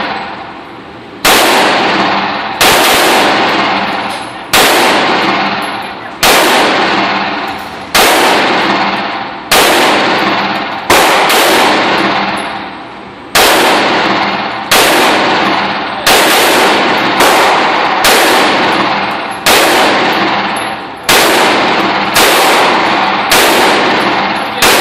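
Custom-built AR-15 rifle fired semi-automatically, about sixteen single shots spaced one to two seconds apart, each shot echoing and dying away in the indoor range.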